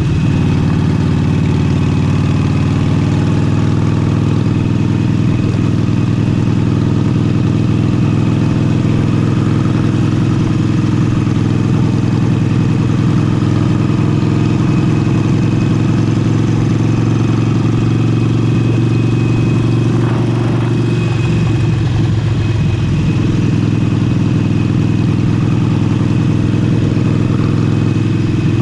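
Harley-Davidson Forty-Eight's air-cooled Sportster V-twin running steadily through an aftermarket Vance & Hines exhaust on the move, with wind noise on the microphone. About two-thirds of the way through, the engine note breaks up and shifts briefly, then settles again.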